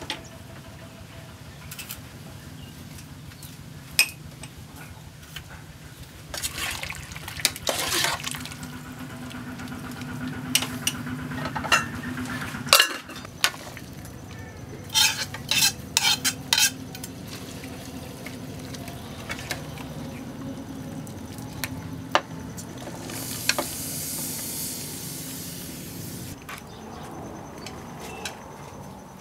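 A metal ladle stirring soup in an aluminium pot, with sharp clinks against the pot and a quick run of taps about halfway through. A few seconds of soft hiss come a little past two-thirds of the way in.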